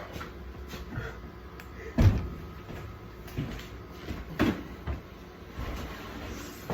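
Several separate knocks and bumps of things being handled and set down, the loudest about two seconds in.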